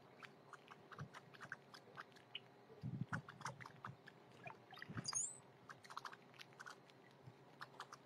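Blackbirds pecking seed on a wooden platform feeder close to the microphone: many quick taps and clicks, with soft low thumps of wings or landing birds around three and five seconds in. About five seconds in, one short, high, wavering chirp with an electronic, computer-like sound.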